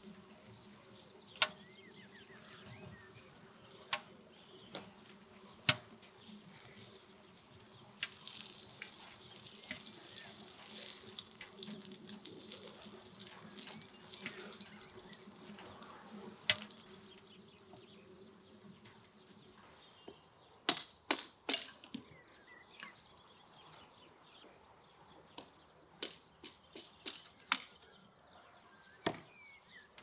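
Flatbread dough frying in oil in a wide steel pan, a steady sizzle with scattered pops. The sizzle is strongest for several seconds in the first half, and a run of sharp pops and crackles comes in the last third.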